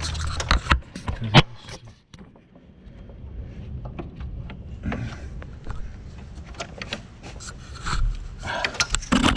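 Metal clanks, knocks and scraping as an engine hanging from a hoist is worked back up and shifted, with one sharp knock about a second and a half in.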